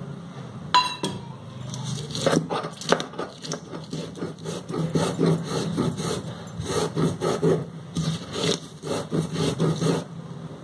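Stone grinding stone (nora) rubbed and knocked back and forth on a flat stone slab (shil), crushing wet green chillies, ginger and powdered spices into a paste, in quick repeated scraping strokes that stop near the end. A single ringing metal clink comes about a second in.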